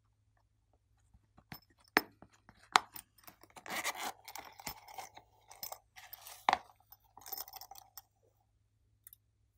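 The zipper of a silicone pop-it pouch being pulled open, a crackling rasp in two stretches. Sharp clicks and taps come from handling the pouch.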